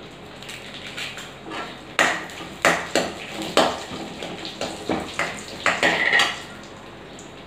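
A steel spoon clinking and scraping against a steel kadai as it stirs mustard seeds, cumin and dried red chillies frying in oil. It is a run of sharp metal knocks starting about two seconds in, with a quick cluster of them near the end.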